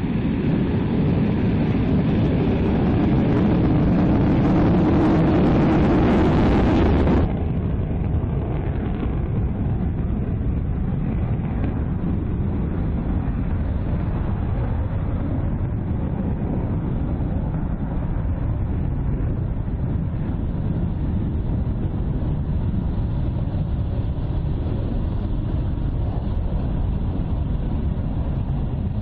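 Panavia Tornado's twin RB199 turbofan engines running close by, slowly getting louder. About seven seconds in it cuts suddenly to a quieter, steady jet rumble from the distance as the Tornado takes off and climbs away.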